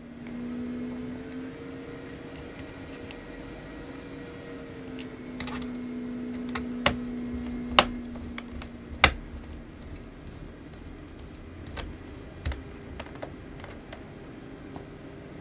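A small screwdriver and tiny screws clicking and tapping against a laptop's chassis and parts during reassembly, with a few sharp clicks in the middle. A low steady hum runs under them and stops about nine seconds in.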